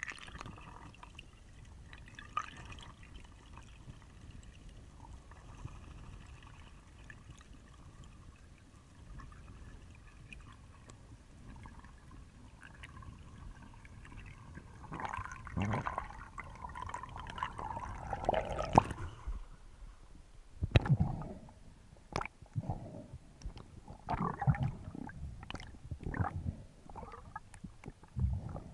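Muffled underwater sound inside an action camera's waterproof housing during a freedive, faint at first. From about halfway it turns to louder gurgling and sloshing of water with many sharp knocks and clicks.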